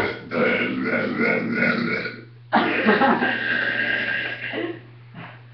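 Two long, massive burps in a row. The second one starts abruptly about two and a half seconds in and trails off near the end.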